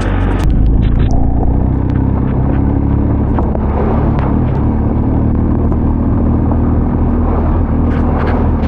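BMW R 1250 GS boxer-twin engine running steadily as the motorcycle is ridden, under a dense rush of road and wind noise.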